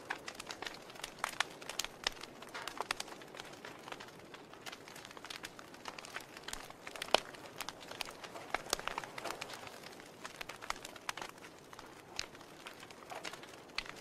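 Wood fire burning in a fireplace: irregular sharp crackles and pops over a soft hiss, with one louder pop about seven seconds in.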